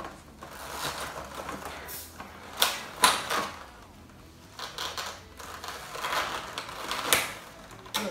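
Stiff clear plastic blister packaging of a boxed action figure being handled and pried open: irregular crackles and clicks, with a few sharp snaps of plastic.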